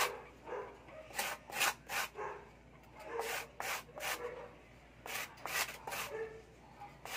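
A styrofoam disc rubbed hard against a cement floor to round off and smooth its edge: quick scraping strokes, three at a time, with a short pause between each run.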